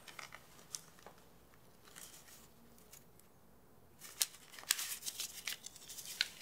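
Paper banknotes rustling and flicking as they are drawn from a leather wallet and counted by hand: light handling rustles at first, then from about four seconds in a quick run of crisp paper snaps.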